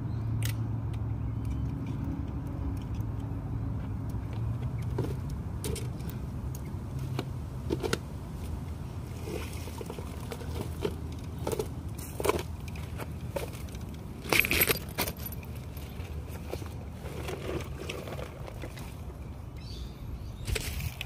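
Steady low rumble of road traffic, with irregular clicks and metallic rattles of gear being handled close to the microphone. The loudest rattle comes a little past the middle.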